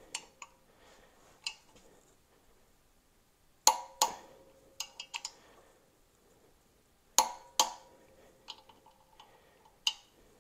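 Click-type torque wrench clicking over at its 85 ft-lb setting on a small-block Chevy's flexplate bolts, each click showing that a bolt has reached torque. Sharp clicks come mostly in pairs, about every three and a half seconds, with lighter metal ticks between them.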